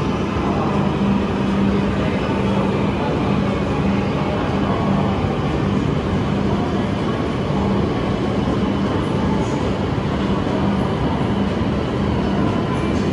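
E5 series Shinkansen moving slowly alongside a station platform: a steady running rumble with a low, even hum throughout.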